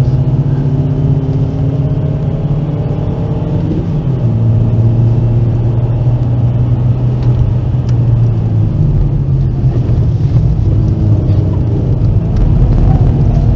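Volkswagen Golf V's 1.4-litre petrol four-cylinder engine running while driving, heard from inside the cabin over road and tyre noise. The engine note shifts about four seconds in and again near nine seconds.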